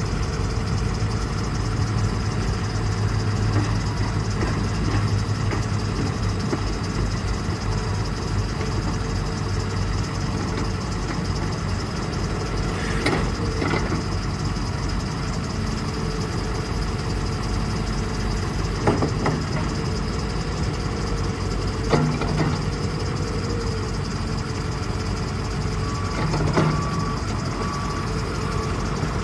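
Ford F450's Power Stroke V8 turbo diesel idling steadily while the dump bed is lowered, with a few brief knocks along the way and a short run of beeps near the end.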